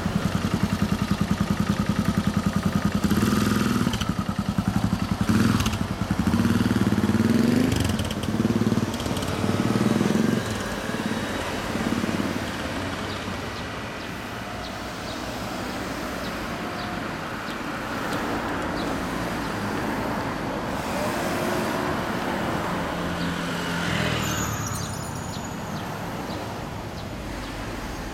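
1990 Yamaha SRX400's single-cylinder four-stroke engine running through a very long exhaust. It idles with an even pulse, then revs and pulls away through the gears about three seconds in, fading into the sound of passing traffic.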